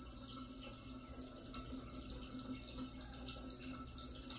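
Quiet room tone: a steady low hum with faint scattered ticks.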